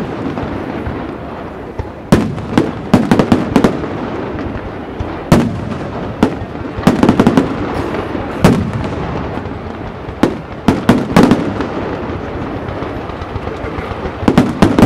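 Professional aerial fireworks display: groups of shell bursts banging at irregular intervals over a continuous rumble and crackle of smaller effects.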